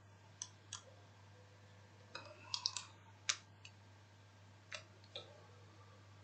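Faint, scattered sharp clicks from the computer drawing input while a line is drawn on screen: about nine in all, several in a quick cluster about two and a half seconds in. A low steady hum lies underneath.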